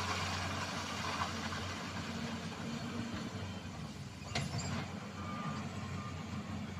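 Hydraulic excavator's diesel engine running steadily under load as it digs, with a sharp knock about four and a half seconds in.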